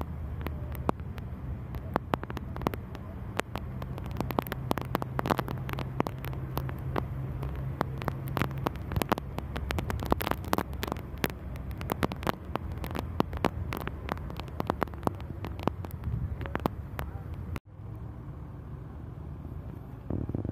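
A bus's engine droning low and steady with road noise, overlaid with frequent irregular clicks and rattles. About three seconds before the end the sound drops out for an instant and comes back quieter.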